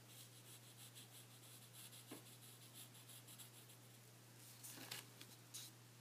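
Yellow wooden graphite pencil scratching across drawing paper in quick short strokes, faint, for about four seconds. Near the end come a couple of louder brushing scrapes.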